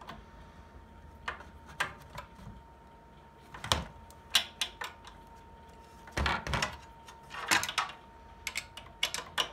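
Metal wrench clicking and rattling in short, irregular runs as it is worked back and forth on the lower banjo nut of a mini lathe's change-gear train, loosening it.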